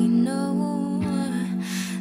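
A woman singing a slow, soft melody live, with gentle instrumental accompaniment holding a steady low note underneath.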